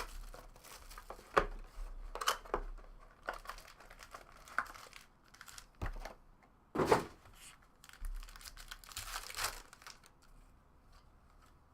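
Plastic wrapping on a box of trading cards and its packs crinkling and tearing as they are opened, in irregular bursts with a couple of louder rips; it dies away near the end.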